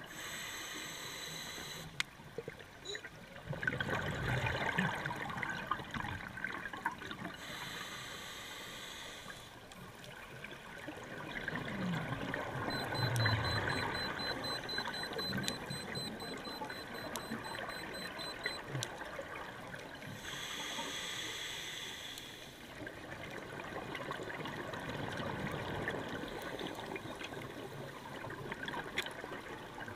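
Scuba diver breathing through a regulator underwater: three hissing inhalations, each followed by a longer spell of bubbling exhaust from the regulator.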